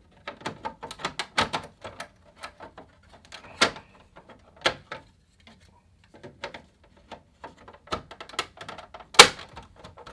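Irregular clicks, clatter and knocks of a Remington Streamliner portable typewriter's parts being handled and refitted by hand, with the loudest knock near the end.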